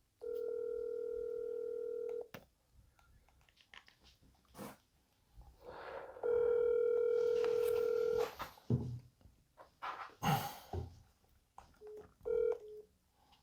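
Telephone call ringing tone: two long steady tones of about two seconds each, some four seconds apart, then a short beep near the end, while the call waits to be answered. Scattered clicks and rustling come in between.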